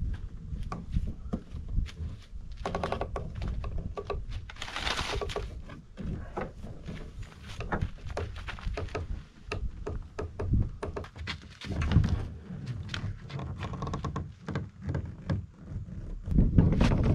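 Gear being handled: scattered knocks and thunks, with a short scraping rush about five seconds in and a louder cluster of thumps near the end, over a low rumble.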